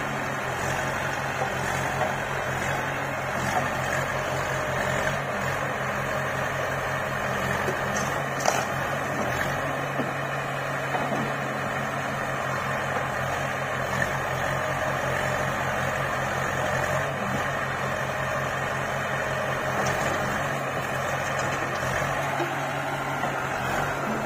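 Heavy diesel engine idling steadily with an even low throb. A single sharp click about eight seconds in.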